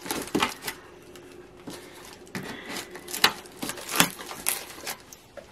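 Scissors snipping and cutting through packing tape on a small cardboard box, a scattered series of short clicks and snips, with the cardboard crackling as it is handled.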